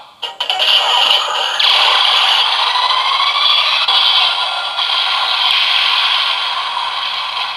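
Bandai DX Attache Shotgun toy's speaker playing its Shooting Kaban Buster full-charge finishing-attack sound effect: a long electronic blast with a slowly rising tone, fading out near the end.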